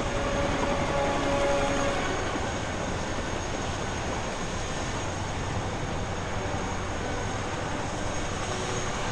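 RAF helicopters' turbines and rotors running steadily: a dense, continuous rumble with a thin high whine.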